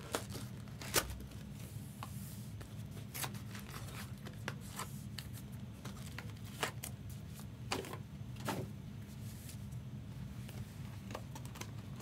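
Trading cards being handled: scattered light clicks and short rustles of cards sliding and flicking, over a steady low hum.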